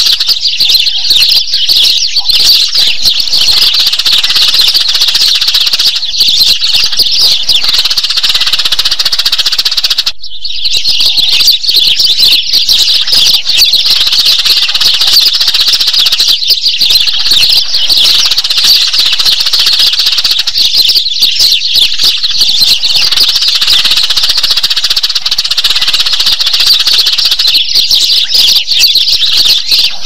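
Sparrows chirping in a dense, unbroken chatter of short high calls, a lure call for drawing a flock of sparrows in; there is a brief break about ten seconds in.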